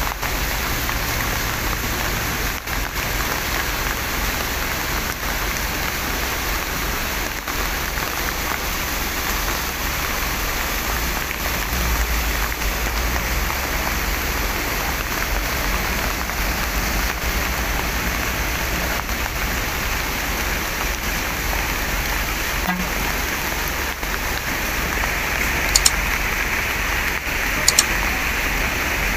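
Heavy rain falling steadily, an even, unbroken hiss. A few short, sharp clicks sound near the end.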